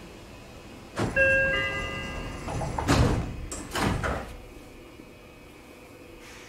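Seibu 40000-series commuter train's doors closing: a two-step electronic door chime about a second in, then the sliding doors running shut with two heavy thuds around three and four seconds in, the signal that the train is about to depart.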